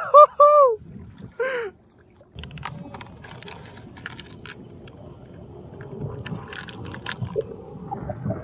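A loud wordless cry whose pitch bends, with a second short cry about a second and a half in. Then water sloshing around the wading legs, with scattered small clicks and rattles.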